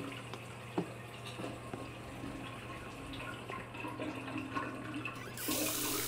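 Faint room hum with a few light ticks. About five seconds in, a washroom tap is turned on and water runs steadily into the sink.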